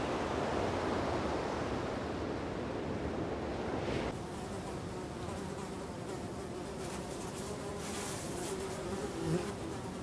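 Surf washing up on a beach for about four seconds, then a sudden cut to flies buzzing, a wavering steady hum, around rotting flesh.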